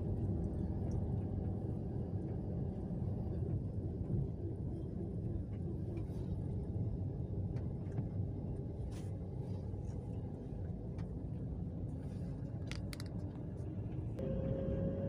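Perodua car heard from inside the cabin while driving: a steady low engine and road rumble. Near the end a clear engine tone comes in and climbs slightly as the car picks up speed.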